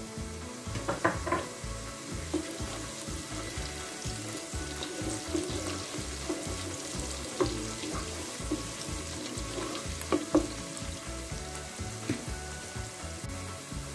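Chopped onions and whole spices (cloves, cardamom, cumin seeds) sizzling steadily as they fry in hot oil in a pot. A wooden spoon stirs them, with a few short knocks and scrapes.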